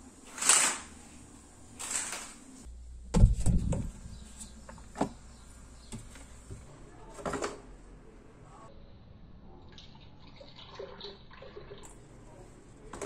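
Kitchen handling noises: a few short knocks and clatters, the loudest a heavy thump about three seconds in, then coffee poured from a coffee-maker carafe into a tall drinking glass.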